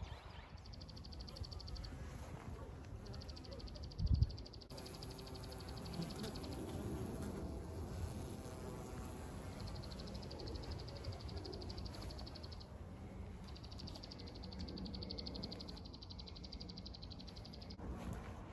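Honey bees buzzing around a wooden hive: a steady, wavering hum of many wings. There is one low thump about four seconds in, and a high, rapid trill comes and goes several times behind the hum.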